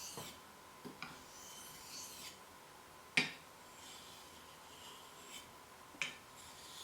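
Steel knife blade scraping along a wet 1200-grit whetstone in slow, repeated sharpening strokes. A few sharp clicks break in, the loudest about three seconds in.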